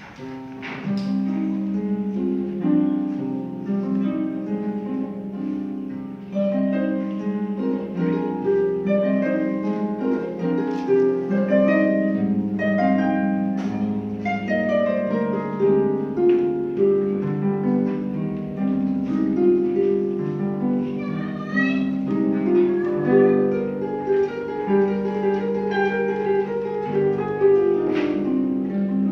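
Pedal harp playing solo: plucked notes ringing over one another in a flowing classical piece, with a quick rising run of notes about two-thirds of the way in.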